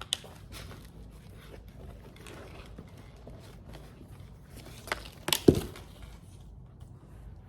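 A few short knocks and clicks over faint room noise, with a dull thump about five and a half seconds in.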